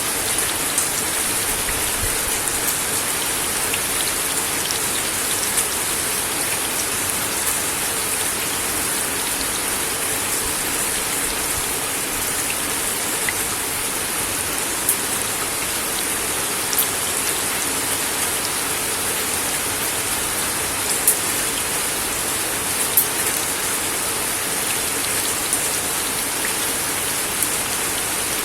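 Steady rain falling on a wooden deck, with occasional louder single drops hitting close by.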